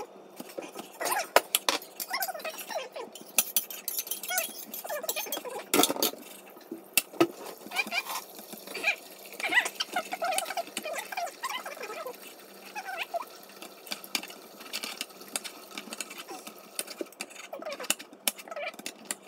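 A kitchen knife slicing through cooked sausages, the blade knocking irregularly on a wooden cutting board.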